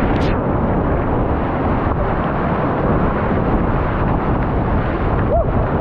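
Loud, steady rush of big-volume whitewater rapids around a kayak, with a short, sharp splash about a quarter second in.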